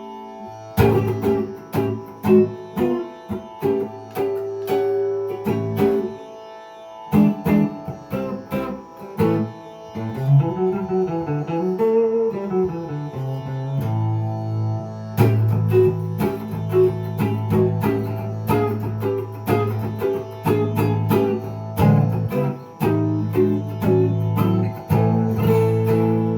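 Gibson ES-339 semi-hollow electric guitar improvising in a jazzy style with an Indian flavour: plucked single notes over held, ringing tones, with wavering, bent notes in the middle.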